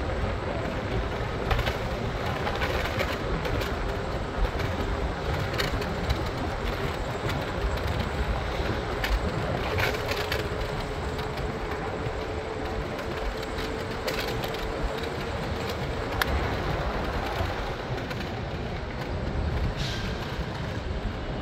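PATH rapid-transit train running on the rails: a steady rumble with scattered clicks, and a faint whine for several seconds midway.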